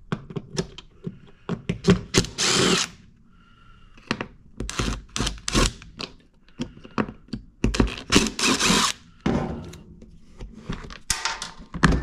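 Tools and a plastic generator access panel being handled: scattered knocks, clicks and rattles, with two harsh rushing bursts about a second long, one about two seconds in and one near eight seconds in.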